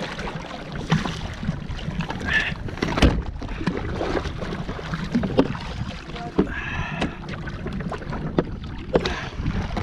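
Wind rumbling on the microphone, with splashing and several sharp knocks, the loudest about three seconds in, as a hooked snoek is lifted thrashing from the water onto a plastic kayak.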